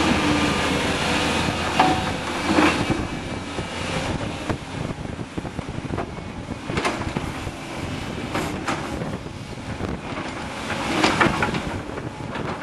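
Blustery wind buffeting the microphone, making crackling gusts, strongest about two seconds in and again near the end, over the diesel engines of tracked excavators working below.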